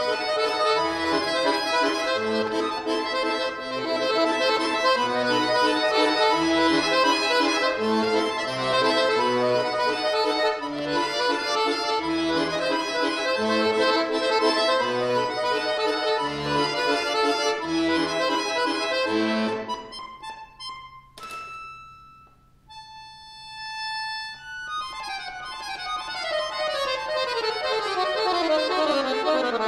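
Solo chromatic button accordion playing a classical piece: a busy passage of fast right-hand notes over bass notes, which about twenty seconds in thins to a few soft, short high notes, then a long run falling in pitch.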